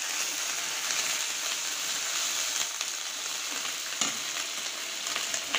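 Sliced onions and garlic paste sizzling steadily in hot oil in a non-stick frying pan, stirred with a steel spatula that clicks against the pan a couple of times, about four seconds in and near the end.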